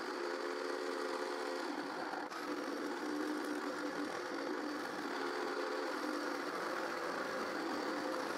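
Bandsaw running and cutting a curve through a wooden board as the board is turned on a circle-cutting jig. The motor gives a steady hum under an even hiss from the blade in the wood.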